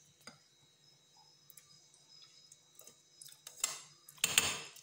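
A steel spoon clinking and scraping inside a stainless-steel mixer-grinder jar of coarse ground powder: a few faint clicks, then a louder scrape near the end.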